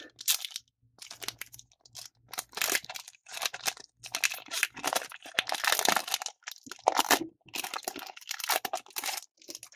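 A foil trading-card booster pack being torn open and crinkled in the hands: a run of irregular tearing and crinkling noises. Near the end the wrapper rustles as the cards are drawn out.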